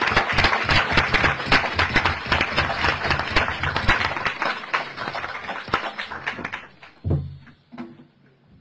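Audience applauding, dying away about seven seconds in, followed by a brief low sound.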